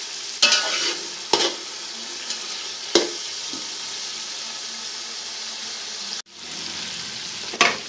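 Boiled chickpeas and masala frying in melted fat in a pot, sizzling steadily, with a few sharp clinks and scrapes of a spoon stirring them. The sizzle cuts out for a moment about six seconds in.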